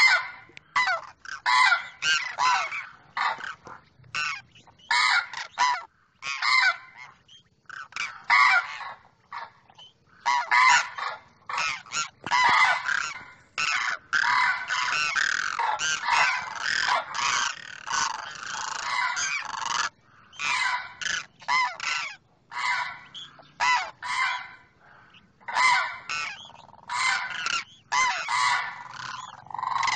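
Demoiselle cranes calling: many short, rough calls in quick runs, with brief pauses between bouts, the calls crowding together and overlapping about halfway through.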